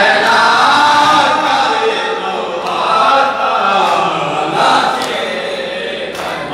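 A group of male voices chanting a noha, a Shia mourning lament, together in a slow, sustained melody, sung into a microphone.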